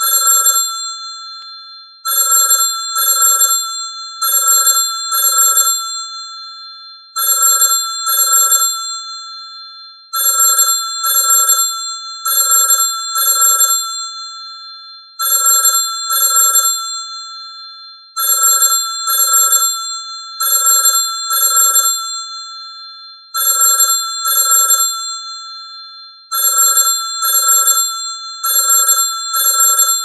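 Classic telephone bell ringing in a double-ring cadence: two short rings close together, the pairs repeating about every two to three seconds, each ring fading out after it stops.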